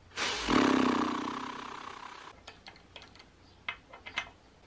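A whirring hiss that starts suddenly and fades over about two seconds, then a handful of light, irregular metallic clicks as a socket tool works the timing-belt tensioner nut on a Ducati Hypermotard 1100 engine.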